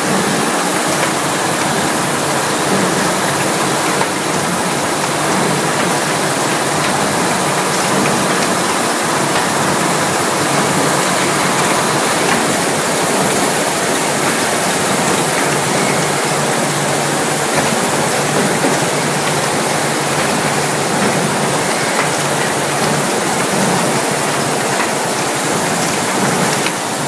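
Steady, loud workshop machinery noise, an even rushing hiss with no distinct strokes standing out.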